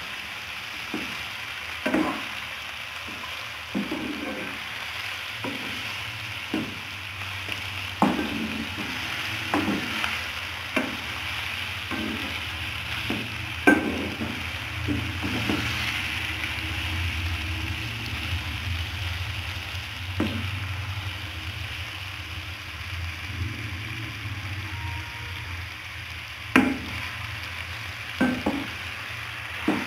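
Mutton liver pieces sizzling steadily as they fry dry, with no water added, in a nonstick pan. A plastic spatula scrapes and knocks against the pan every few seconds as they are stirred, over a low steady hum.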